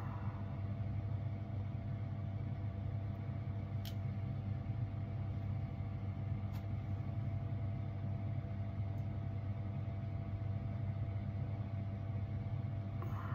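A steady low mechanical hum with a constant pitched drone that never changes, with a few faint, light clicks over it.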